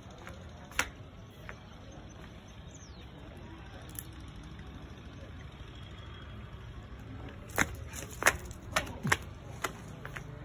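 Footsteps on a concrete floor: a few sharp taps roughly half a second apart in the last few seconds, over a steady low background rumble.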